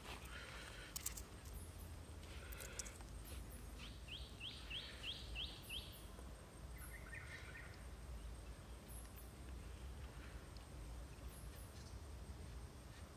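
Quiet outdoor ambience under a steady low rumble, with a few faint rustles and clicks. About four seconds in, a bird gives a quick run of about six high chirps.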